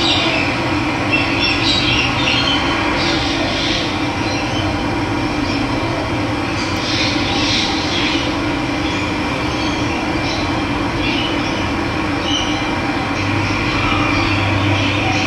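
Running water rushing in a steady stream, with wild birds chirping now and then over it.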